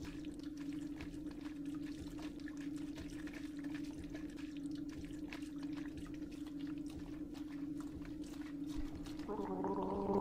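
Water pouring from a leather canteen into a man's mouth and spilling over his face, a running gargle with many small splashes and drips over a steady low hum. Near the end a short voice-like sound comes in.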